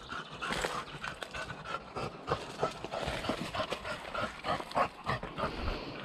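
A dog panting in quick, hard breaths, mixed with scattered short crackles and scuffs.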